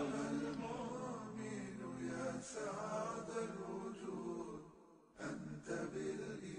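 Unaccompanied vocal chanting, voices holding and bending long notes; it drops out briefly about five seconds in.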